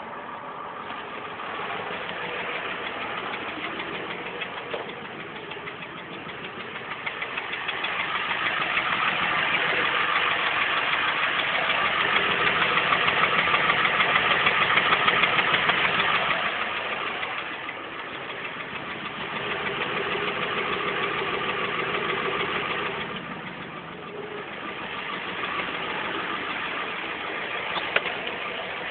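Ford 7.3 IDI naturally aspirated V8 diesel running with a fast, continuous clatter, the weird noise that the owner suspects could come from the injection pump, the injectors, a lifter or a valve. The noise swells to its loudest near the middle, eases off, then rises and falls twice more.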